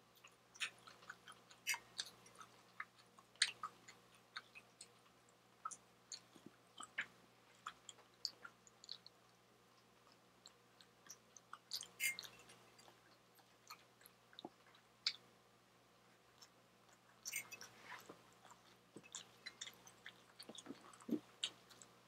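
Close-miked chewing of a mouthful of fish, rice and broccoli: a scatter of soft wet smacks and clicks, with a few quieter pauses between bites.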